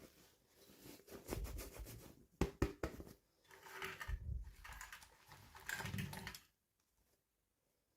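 Toy packaging being handled and opened: crinkling and rustling in bursts, with a few sharp clicks or taps about two and a half seconds in, then it stops about two thirds of the way through.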